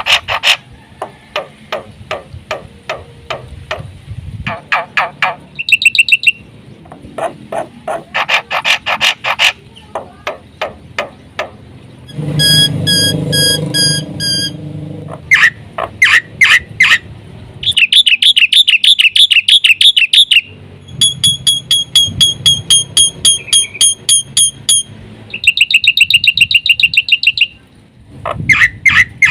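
Black-winged myna (jalak putih) singing a long, varied song: series of rapid repeated notes, fast trills and pitched whistles, with a harsh rasping call about halfway through. Its song is full of imitations of other birds' calls.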